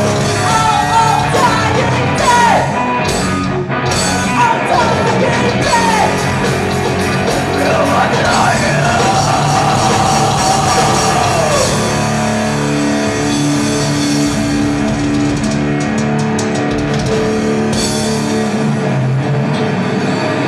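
Live rock band playing: singing over electric guitar and drums, with a long held note about eight seconds in. After about twelve seconds the singing gives way to the band playing on.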